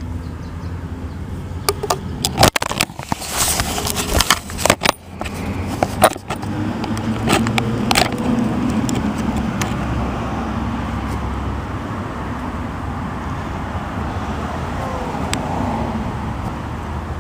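Small metal clicks, taps and scrapes as parts of a gate lock cylinder are handled and a new cap cover is worked into place, bunched in the first half. After that a steady low rumble of a motor vehicle runs underneath.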